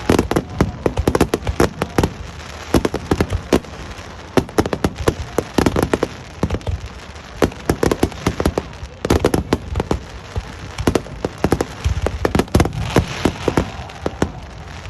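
Fireworks display: a rapid barrage of sharp bangs from bursting aerial shells, many overlapping in quick clusters with short lulls between, thinning out near the end.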